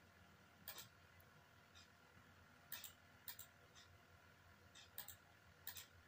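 Faint computer mouse clicks, several of them quick double clicks, as chess pieces are moved on screen. A fainter, steady tick comes about once a second beneath them.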